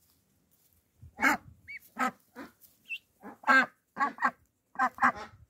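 Young Indian Runner ducks calling: a string of short, loud calls, some single and some in quick pairs, starting about a second in.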